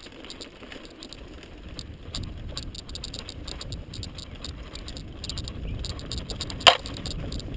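Mountain bike rattling and its tyres rumbling down a dirt singletrack, with many quick chain and frame rattles. One sharp knock stands out near the end.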